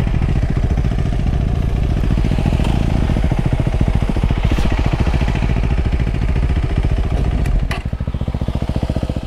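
KTM 390 Adventure's single-cylinder engine running with a steady, rapid firing pulse. A sharp knock comes about seven and a half seconds in, and the engine goes quieter just after.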